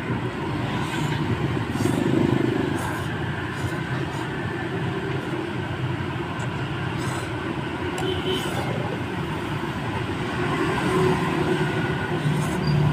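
Steady hum of street traffic, with motorbikes and cars passing and no single event standing out.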